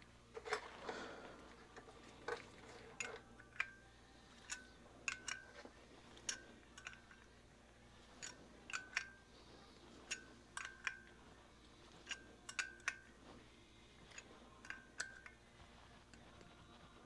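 Faint, irregular metallic clicks and clinks, some ringing briefly: a crescent wrench being fitted and turned on the nuts and fittings of a rebuilt Marvel Schebler DLTX-10 carburetor.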